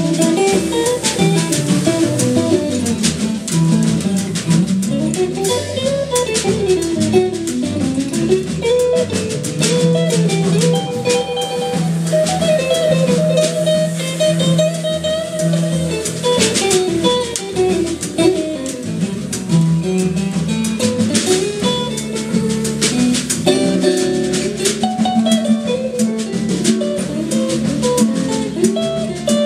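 Klezmer tune played by a jazz trio: acoustic guitar carrying the melody in runs that climb and fall, over upright double bass and a drum kit keeping time with cymbals.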